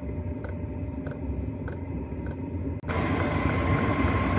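Chinese 5 kW diesel heater's fuel dosing pump ticking about every 0.6 s over the low rumble of the heater running, the pump feeding fuel as the heater primes and fires. About three seconds in, the sound changes abruptly to a louder steady running noise with a whine from the blower.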